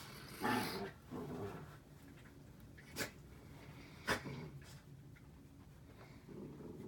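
Dogs playing, making faint short sounds, with two sharp clicks about three and four seconds in.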